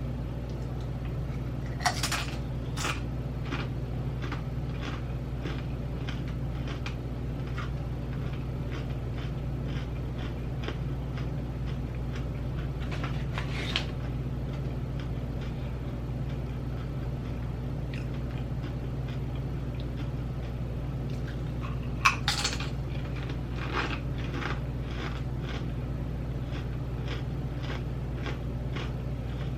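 Crunching and chewing of dill pickle potato chips in short clusters of crisp cracks, over a steady low hum.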